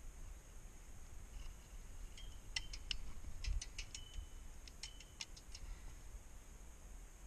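Airsoft guns firing three short, faint bursts of sharp clicking shots, three to five shots in each, starting about two and a half seconds in.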